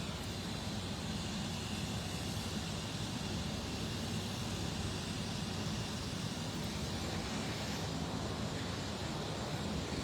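Steady engine drone with a low hum, unchanging throughout.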